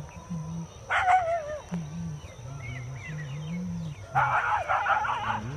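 A pack of dogs snarling and yelping: a wavering, falling yelp about a second in, then a rough burst of snarling and barking from about four seconds in.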